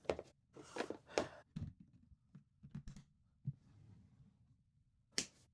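Lid of a Powerwerx MEGAbox plastic battery box being closed and handled: a string of faint plastic clicks and knocks, with a sharper snap near the end as a latch is pushed shut.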